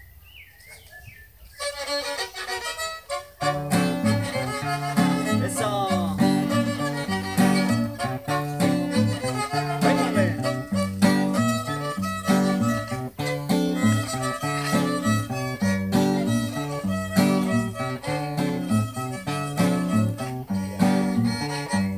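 Fiddle and acoustic guitar playing a lively dance tune. The fiddle comes in about a second and a half in, and the guitar's steady bass-and-chord rhythm joins about two seconds later.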